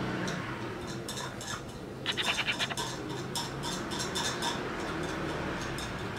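Light scratching and small metallic clicks and taps as a small coffee tool is worked at the grinder's dosing cup, densest about two seconds in.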